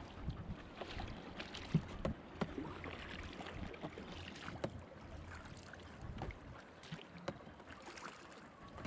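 Oars of a small rowed dinghy dipping and splashing, with irregular knocks from the rowing.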